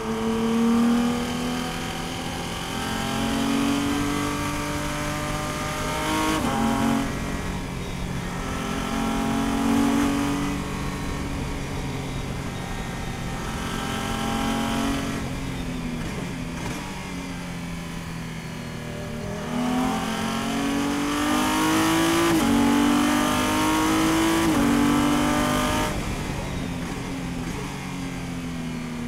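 Race car engine heard from inside the cockpit at speed, its pitch climbing under acceleration and dropping sharply at each upshift several times, then easing off lower as the car brakes and shifts down for a corner near the end.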